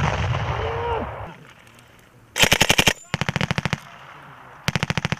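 General-purpose machine gun firing short bursts of automatic fire, three bursts of rapid, evenly spaced shots, the weapon fitted with a blank-firing adaptor. It opens on a loud low rumble that dies away over the first second.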